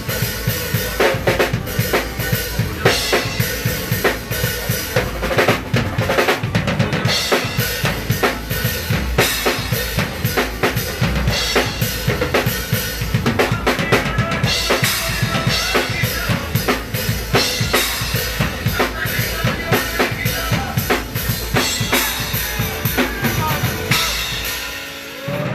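Live drum kit playing a fast, busy groove of bass drum, snare and rimshots, breaking off near the end.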